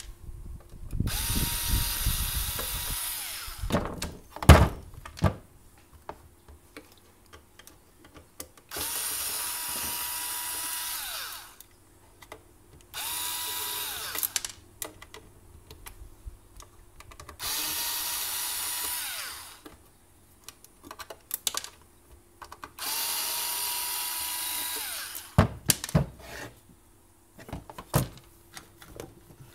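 Worx cordless electric screwdriver turning the screws of a coffee maker's metal base plate, in five short runs of about two to three seconds each with a steady whirring pitch. Between the runs come sharp clicks and knocks of the plate and screws being handled on the bench.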